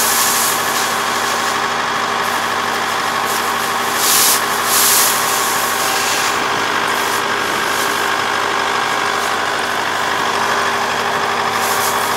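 A four-row rice combine harvester's engine running steadily at constant speed while the machine stands still. Two short bursts of noise come about four and five seconds in.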